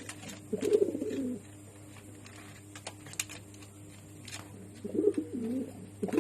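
Pigeon cooing: two low coo phrases about a second long, each falling in pitch, about four seconds apart, with a third beginning right at the end. A few faint clicks fall in the gap between them.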